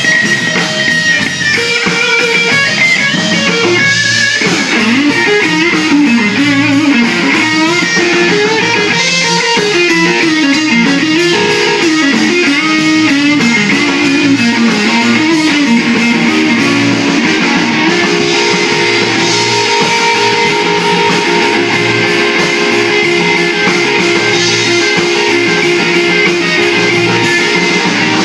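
Live blues band: an electric guitar plays a solo of bent, wavering notes over bass guitar and drums, then holds one long sustained note through the second half.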